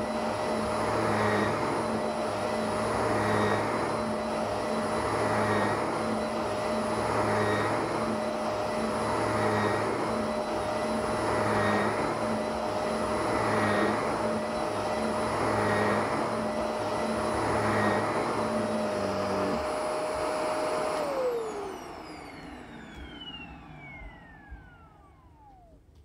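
Shark upright vacuum cleaner running on carpet, its sound swelling and easing about every two seconds as it is pushed back and forth. About twenty seconds in the strokes stop. It is then switched off, and its motor whine falls in pitch as it spins down.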